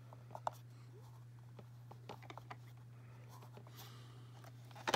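Faint handling sounds of fingers pressing and rubbing a license-plate sticker onto a hard plastic toy car, with a few small clicks and taps and a sharper tap at the end, over a steady low hum.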